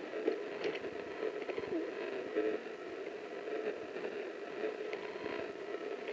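Faint footsteps and rustling through forest undergrowth, with scattered small crackles and scrapes of leaves and twigs, in no steady rhythm.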